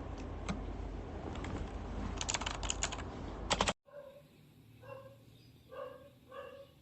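Keystrokes on a Tsunami MK-61 mechanical keyboard's Outemu switches: a few separate clicks, then a quick flurry of presses. About four seconds in, the sound cuts off suddenly, and a different recording follows with short pitched calls about every half second.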